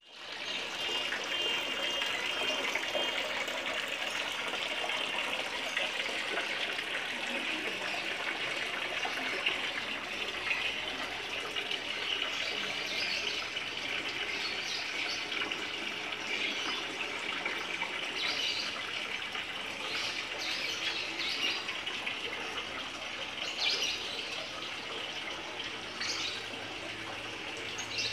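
Water splashing steadily as it pours from a tiered garden fountain of stacked pots into a small pond, with brief bird chirps now and then.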